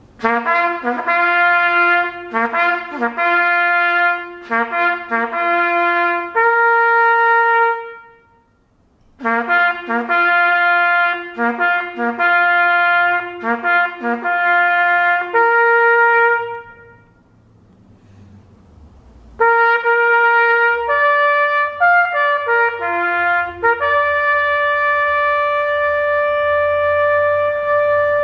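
Solo trumpet playing a bugle call: a phrase of quick, tongued notes ending on a held note, the same phrase repeated after a short pause, then a third phrase that ends on a long held note near the end.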